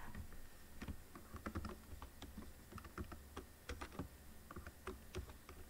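Faint typing on a computer keyboard: irregular key clicks, several a second.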